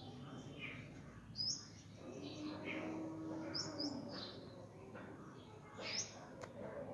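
A bird chirping: short, sharp, high calls sweeping upward, about four of them a second or two apart, one doubled, over faint background murmur.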